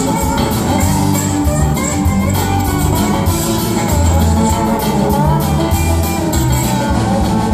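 Live band playing with guitars over bass and drums, in a steady beat.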